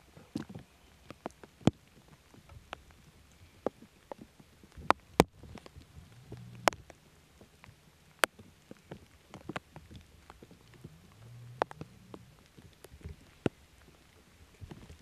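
Scattered, irregular sharp taps and clicks of uneven loudness, with a couple of brief low rumbles.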